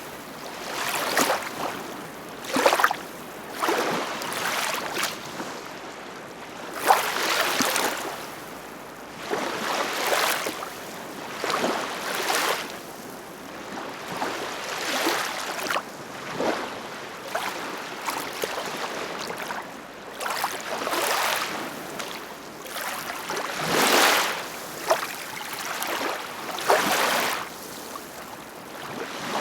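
Ocean waves splashing and washing in short, irregular surges, one every second or two, over a steady rush of water.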